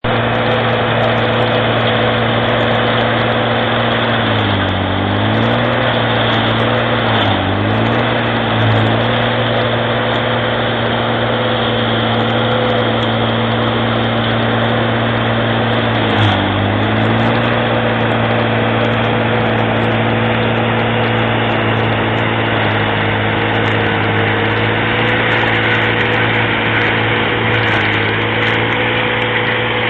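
Galotrax 300 tracked carrier's diesel engine running hard, driving a BF 501 forestry mulcher rotor as it shreds brush. The engine note stays steady but dips briefly three times and recovers as the rotor takes load.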